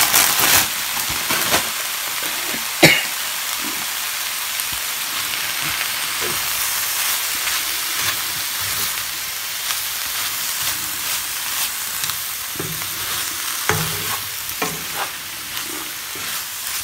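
Baby spinach and vegetables frying in a hot non-stick pan: a steady sizzle while a wooden spoon stirs them, knocking against the pan once sharply about three seconds in and a few times near the end.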